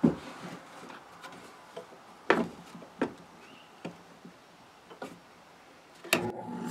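Scattered knocks, clicks and light wooden clunks of guitar parts and tools being handled and set down on a workbench, the loudest right at the start and a couple more about two to three seconds in. Music comes in near the end.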